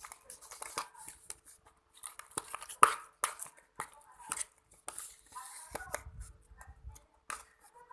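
Irregular clicks, taps and crackles of close-up handling, with a brief low rumble about six seconds in.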